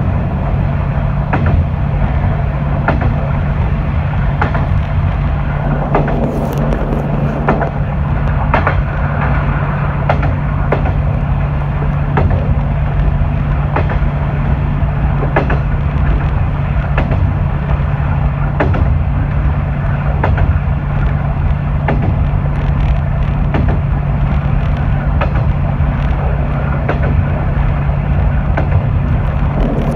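Diesel railcar on the JR Yosan Line's Iyonada section running along the track: a steady low engine drone over rumbling wheels, with sharp clicks from the rail joints about every second and a half.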